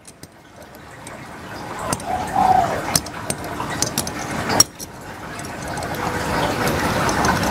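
A few sharp metal clicks and handling sounds as a bias-binding folder attachment is positioned on the metal bed of an industrial sewing machine, over a background hiss that grows steadily louder.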